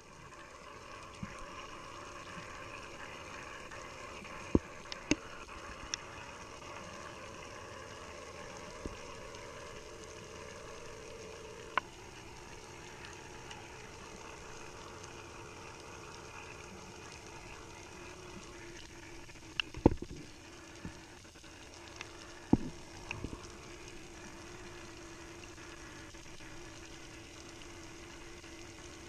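Muffled underwater ambience: a steady hiss with a faint hum, broken by a few sharp clicks and knocks. The loudest knocks are about two-thirds of the way through.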